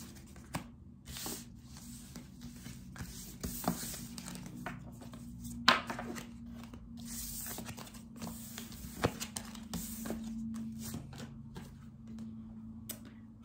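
Tarot cards being gathered up and slid off a wooden tabletop: a run of soft scrapes and rustles, broken by sharp taps as cards are knocked together or set down, with the sharpest a little before halfway through.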